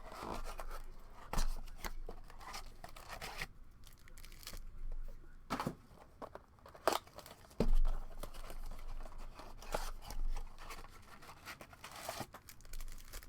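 Foil trading-card packs being torn open and crinkled, with cards handled in between: irregular rustling and ripping, with a few sharper knocks.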